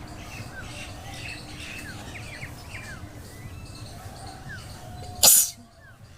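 A woman sneezes once, loudly and briefly, about five seconds in, a sneeze set off by tickling her nose with a blade of grass. Small birds chirp throughout.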